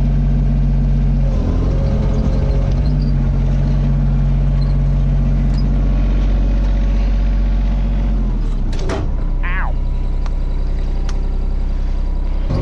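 A motor vehicle engine running steadily, dropping to a lower, slower note about eight seconds in.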